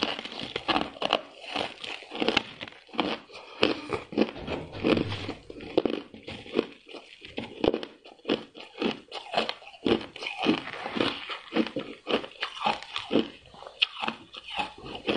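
A person biting and chewing a block of soft, frosty ice close to the microphone: a steady run of crisp crunches, several a second.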